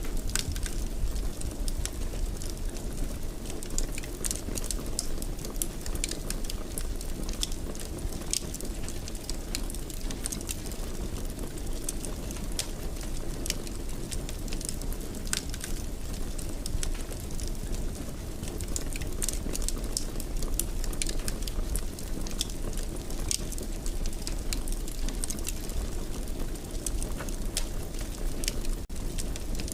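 Wood fire in a fireplace crackling, with frequent irregular sharp pops and snaps over a steady low rumble of burning.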